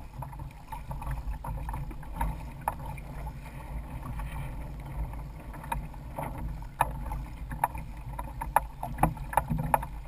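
Water sloshing against a Hobie Adventure Island sailing kayak's hulls under sail, over a steady low rumble, with irregular sharp clicks and knocks that come thicker in the second half.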